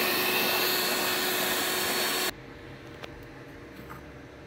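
Electric mixer running steadily as it whips egg whites and yolks into a foamy batter, then switched off abruptly a little over two seconds in. A few faint clicks follow.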